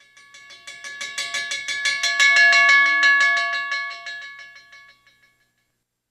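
A bell struck rapidly, about eight strikes a second, with a clear ringing pitch; it swells up and then fades away over about five seconds.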